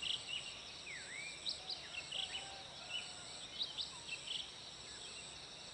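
Morning birdsong: several birds give short chirps and whistles, one a swooping call about a second in, over a steady high insect trill.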